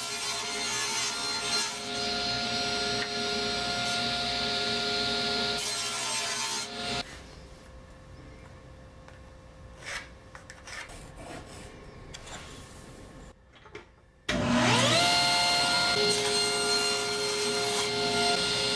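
Electric power saw running and cutting wood for about seven seconds, then a quieter stretch with a few knocks. About fourteen seconds in, the saw motor starts again with a rising whine as it spins up, then runs steadily.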